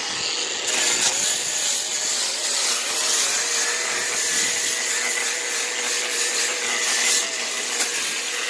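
Ryobi variable-speed right-angle grinder with an abrasive brush scouring the surface of cedar logs: a steady motor whine that wavers slightly in pitch under the scrubbing hiss of the brush on the wood.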